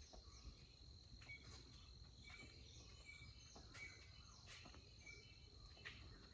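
Faint garden ambience: a steady high insect drone, with short chirps recurring about once a second.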